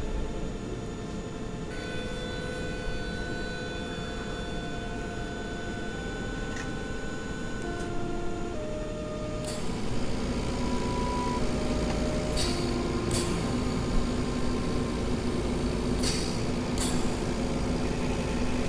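Hospital-machine ambience: a steady low hum and rumble under several held electronic tones that shift pitch every second or two. About halfway in a brighter hiss joins, with short high bursts of hiss every few seconds.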